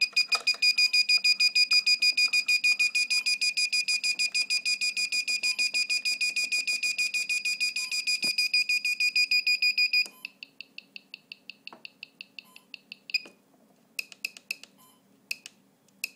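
Beeper of a homemade FPV RSSI switch in sound-monitor mode, sending out rapid, evenly spaced high-pitched beeps: the better the video receiver's signal, the more it beeps. About ten seconds in the beeping suddenly turns much quieter, and near the end only a few scattered short beeps remain.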